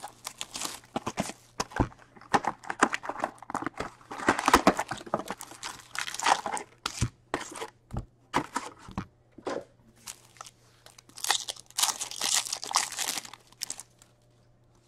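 Foil hockey card packs from an SP Authentic box being handled and torn open. The wrappers crinkle and tear in two longer stretches, amid many short taps and clicks of cardboard and card stacks.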